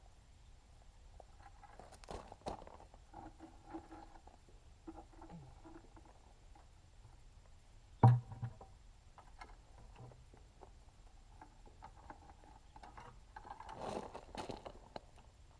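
Scattered light clattering and handling noises, with one sharp knock about halfway through and a busier patch of clatter near the end.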